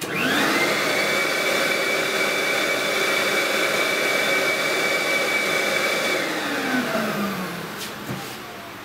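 Rupes KS260 mobile dust extractor switched on: its vacuum motor whines up to speed within a fraction of a second and runs with a steady high whine for about six seconds. It then winds down, the whine sliding lower in pitch and fading over the last two to three seconds.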